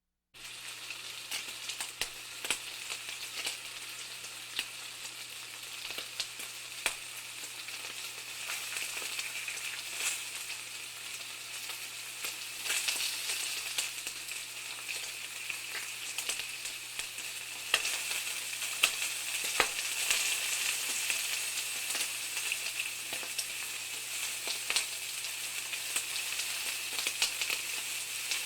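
Bacon frying in a pan: a steady sizzle with frequent sharp pops and crackles of spitting fat, growing a little louder and busier about halfway through.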